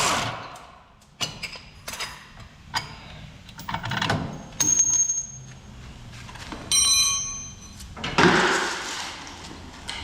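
Hand tools clinking and knocking on metal suspension parts. A ringing metallic ping comes about halfway through and a short ringing clang follows, with a longer scraping rustle near the end.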